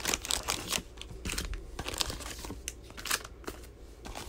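Foil trading-card packs crinkling as they are handled and set down, with irregular sharp crackles of the wrappers.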